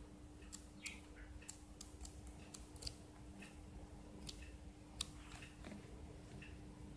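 Faint, irregular ticks and light rustles of paper as a paperback book's pages are leafed through by hand, over a faint steady hum.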